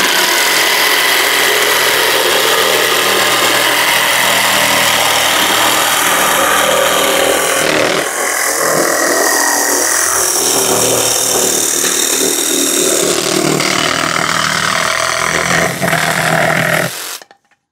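Parkside PSSSA 20 Li B2 cordless jigsaw with a wood blade running and cutting through 15 mm plywood, a steady saw buzz with the blade rasping through the wood. The sound changes about halfway through, and the saw stops shortly before the end.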